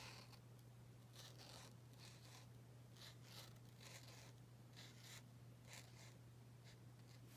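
Faint scratchy strokes of a paint marker's tip on paper, about a dozen short irregular strokes, over a steady low electrical hum.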